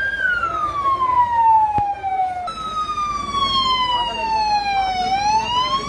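Ambulance siren wailing, its pitch falling slowly over a couple of seconds and rising again near the end, with a sudden jump up in pitch about halfway through.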